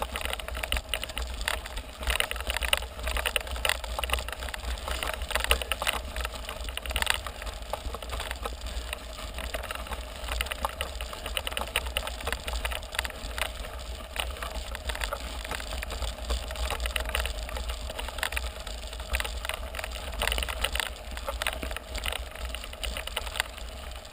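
Mountain bike riding up a gravel road: the tyres crunch over loose gravel with frequent clicks and rattles from the bike, over a steady low rumble.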